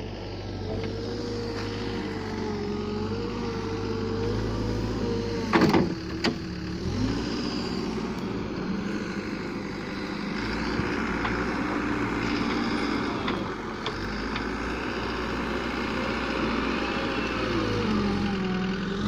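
Engine running steadily, then a sharp click about six seconds in, after which a Terex wheel loader's diesel engine runs with revs rising and falling as it works.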